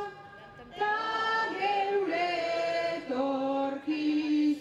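A woman singing a slow Basque song into a microphone. After a short break at the start come long held notes that step from pitch to pitch.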